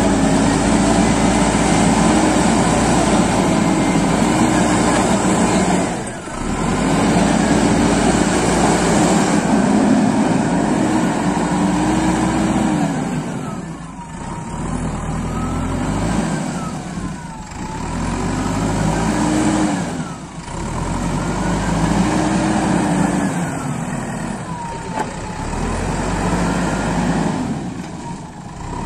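JCB backhoe loader's diesel engine running hard and revving up and down repeatedly as the machine drives and works its bucket. A fainter whine glides down and back up with each change in revs.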